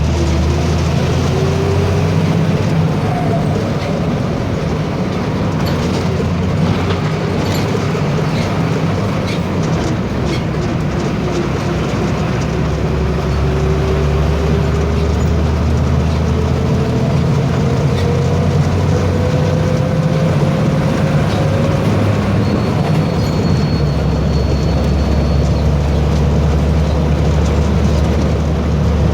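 Diesel engine of a VW 17.230 EOD bus chassis running under way, with its turbocharger whistling: a thin whine that slowly rises in pitch over a steady low engine drone, fading out near the end.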